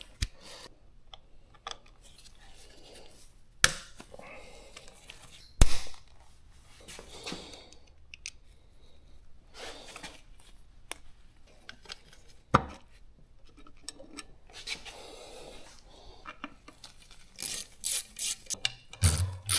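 Hands working with a plastic bag and tools: rustling and crinkling, broken by a few sharp knocks and clicks, with a quick run of crinkling or tearing near the end.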